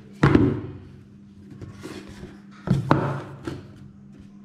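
Cardboard retail box being shifted and set down on a stone tabletop: two thuds with a brief scrape of cardboard, one about a quarter second in and one near three seconds, the second with a sharp knock.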